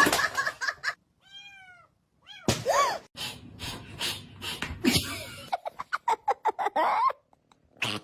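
A cat meowing, with two drawn-out meows in the first few seconds. It is followed by quick short vocal bursts that sound like a person laughing.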